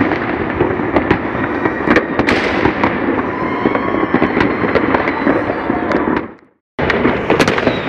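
Many fireworks and firecrackers going off at once in the distance: a dense crackling rumble with sharp bangs every fraction of a second. The sound cuts out briefly about six seconds in, then the bangs resume.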